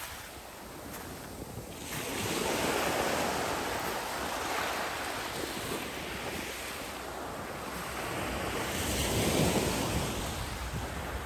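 Small waves breaking and washing up a fine pebble beach, the surf swelling and falling back, once about two seconds in and again, louder, near the end. Wind buffets the microphone, with a low rumble toward the end.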